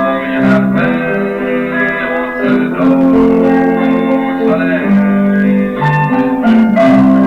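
Instrumental passage from a musical-comedy record: plucked guitar with sustained chords that change every second or so.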